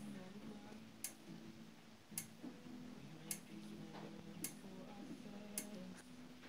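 Faint, regular ticking, about one tick a second, with quiet, slow music of held notes underneath.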